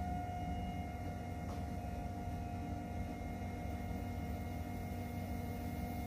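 Electric pottery wheel spinning at a steady speed: an even motor hum with a steady whine over it.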